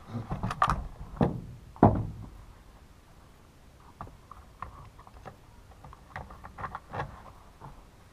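Knocks and clicks of small parts and tools being handled while a chainsaw's cover bolts are fitted, with the heaviest knock about two seconds in and lighter ticks later on.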